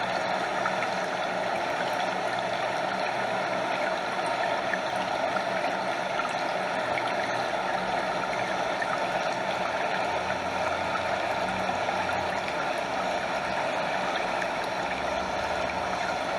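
A stream running steadily, with water lapping close by and cascading over a small waterfall, an even rushing with no breaks.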